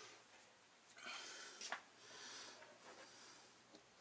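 Near silence, with faint rustling from a cloth shop rag being handled and one small click a little before the halfway point.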